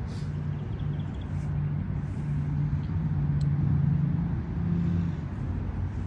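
A low, steady motor hum, with a droning tone that steps a little higher and grows louder about halfway through before easing back.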